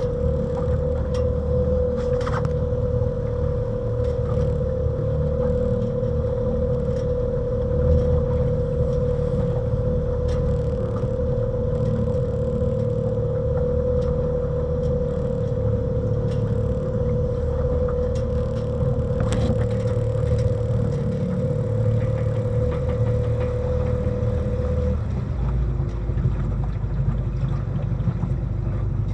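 Strong wind buffeting the microphone, a heavy low rumble, under a steady hum held at one pitch that stops about 25 seconds in, with a few sharp knocks.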